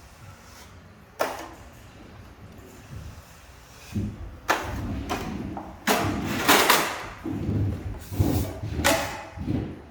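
Steel drywall knife scraping and spreading joint compound, with a sharp knock about a second in and then a run of loud scrapes from about four seconds in.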